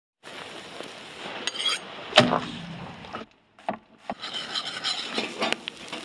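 Meat sizzling in a wire grill basket on a smoking grill, with crackles and a sharp knock about two seconds in. The sound drops out briefly just past the midpoint, then the sizzling resumes.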